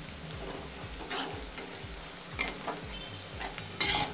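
Fried onions and whole spices sizzling in hot mustard oil and melting butter in a kadhai, with a spatula stirring and scraping the pan in several short strokes, the loudest near the end.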